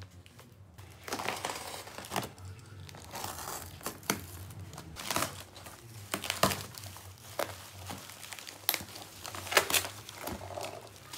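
A taped cardboard shipping box being torn open by hand, its flaps and packing tape ripping and crinkling in irregular bursts. Near the end, black bubble-wrap packaging rustles and crackles as it is pulled out of the box, with a few sharp cracks.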